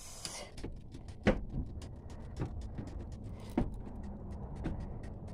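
Footsteps in slippers on a boat's wooden companionway steps, a dull thud about once a second, four in all, with faint light clicks in between.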